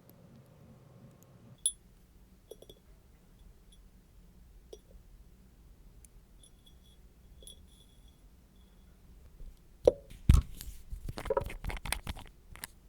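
Small hard nail-art tools and gel bottles being handled: scattered faint clicks and ticks, then about ten seconds in a run of louder taps, knocks and rustling for about three seconds.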